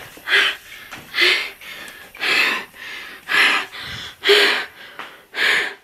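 A woman breathing hard in panic: six loud gasping breaths about a second apart, a few with a slight catch of voice.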